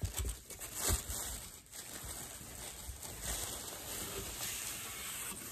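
Clothes being rummaged through and pulled out of a box, fabric rustling, with a few soft bumps in the first two seconds.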